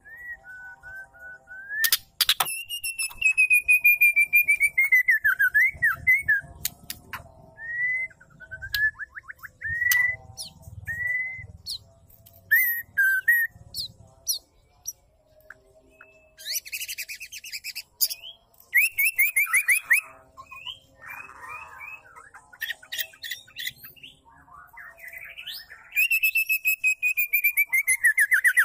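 White-rumped shama, a female, calling: whistled notes that slide up and down, long quick trilled phrases that fall in pitch, and harsh rattling chatter in between.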